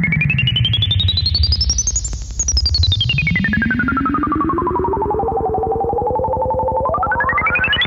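Sawtooth tone from a ReBach VCO GR11 run through a North Coast Synthesis MSK 007 Leapfrog analog low-pass filter, with its knobs being turned. A bright resonant peak sweeps up to a high whistle about two seconds in, glides down over the next few seconds, and shoots up again near the end over a low buzzing note.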